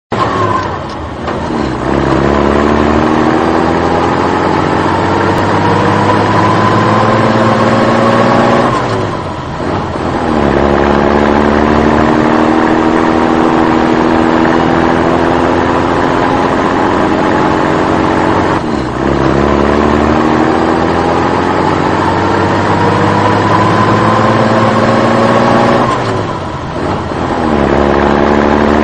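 Motor vehicle engine accelerating: its pitch climbs steadily for several seconds, then falls back sharply and climbs again, as at a gear change, three times over.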